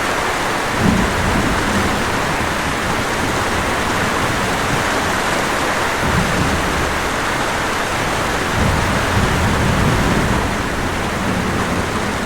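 Steady rain falling, with low rumbles that swell briefly about a second in and again for a couple of seconds past the middle.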